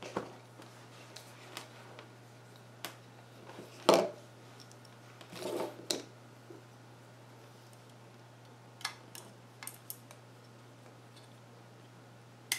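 Scattered small clicks, knocks and rustles of hands handling an LED bulb and its wires on a tabletop, over a faint steady low hum; the loudest knock comes about four seconds in.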